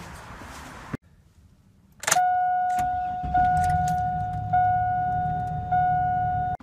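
Car engine starting about two seconds in and then idling, under a dashboard warning chime that rings repeatedly, re-striking about every second and a quarter.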